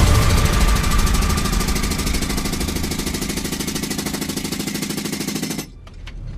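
A machine running with a rapid, even pulse, growing quieter and cutting off abruptly about five and a half seconds in, followed by a few faint clicks.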